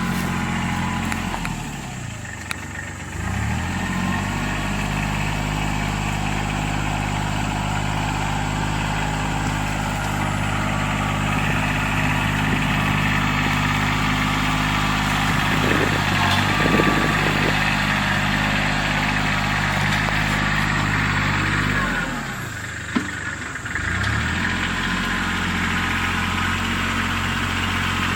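Engine of a brush-clearing machine running steadily under work. Its revs and loudness drop twice, about two seconds in and about twenty-two seconds in, then pick back up.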